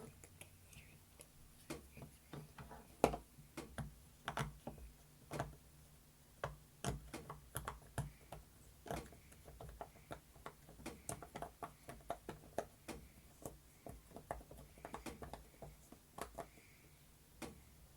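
Silicone pop-it fidget toy having its bubbles pressed one after another: an uneven run of soft pops and clicks, a few a second.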